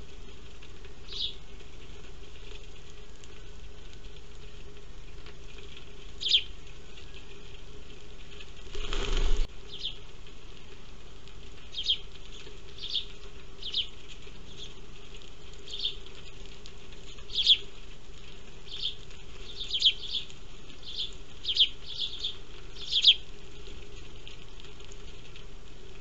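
House sparrows chirping in short single notes, scattered and coming more often in the second half. There is a brief rush of wing flapping about nine seconds in, over a faint steady hum.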